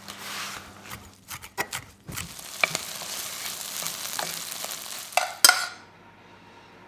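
A few knife knocks on a wooden chopping board, then chicken sizzling in a frying pan while a wooden spoon stirs it, with clicks of the spoon against the pan. A loud clatter a little after five seconds, then it goes quiet.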